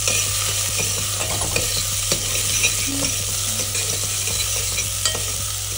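Chopped onions and cumin seeds sizzling as they fry in the base of a pressure cooker, stirred with a metal spoon that scrapes and clicks against the pan now and then.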